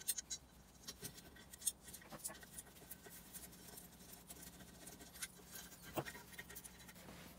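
Faint, scattered light clicks and scraping of small metal tool parts being handled, over a low steady hum.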